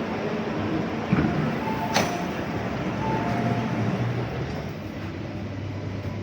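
Steady rumble and noise inside an MTR Tung Chung Line K-Train carriage, with two sharp clicks about one and two seconds in, the second the louder.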